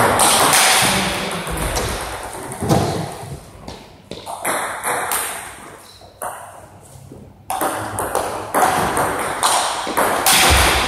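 Table tennis rallies: the celluloid ball clicks off the paddles and bounces on the table in quick succession, echoing in the sports hall. There is a quieter gap of a few seconds around the middle between points, then a new rally starts.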